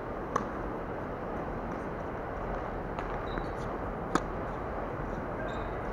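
Three sharp pops of a tennis ball in play, the loudest about four seconds in, over steady background noise.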